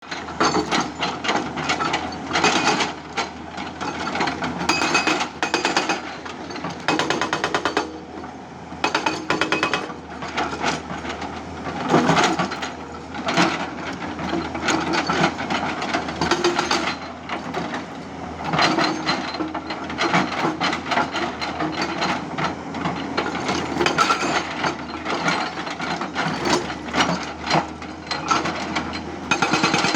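Hydraulic rock breaker on a Tata Hitachi 200 excavator hammering rock in repeated bursts of rapid blows, with the excavator's diesel engine running steadily underneath.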